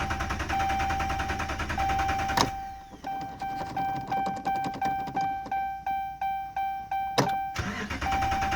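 Hemi V8 of a 2011 Dodge Ram cranking on the starter without catching, a no-start that the owner puts down to no fuel, with a dashboard warning chime ringing. About two and a half seconds in the cranking stops with a click and the chime goes on alone at about three dings a second, until another click near the end and the cranking starts again.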